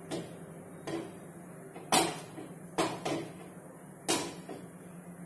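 Non-stick wok being shifted on a gas stove's metal pan support, knocking against it about six times, the loudest about two seconds in.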